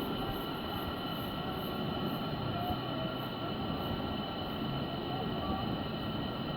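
Tropical forest ambience: insects holding several steady high tones, another insect pulsing very high about twice a second until near the end, and a few faint short bird whistles, over a steady rushing noise.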